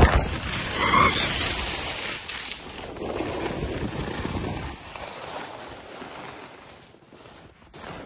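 Skis skidding hard through snow with snow spraying up and wind rushing over the microphone. The noise is loudest at first and dies down over a few seconds to a quieter wind hiss as the skis come to rest.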